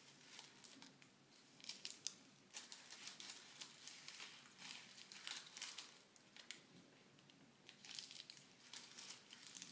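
Faint crinkling and rustling of a handful of cards fumbled in a baby's hands, in irregular little ticks and scrapes.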